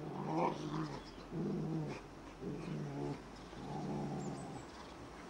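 Rottweilers growling in play as they wrestle: four low, drawn-out growls in a row, each lasting half a second to a second.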